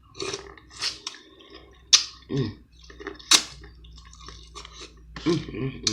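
Close-miked eating sounds from a seafood boil: wet chewing and lip-smacking, with about five sharp smacks and a couple of short low murmurs.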